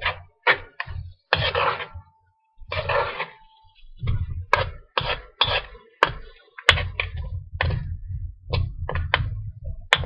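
Metal spoon scraping and stirring chicken around a steel wok in quick, irregular strokes, with a few sharp metallic clinks as it strikes the pan.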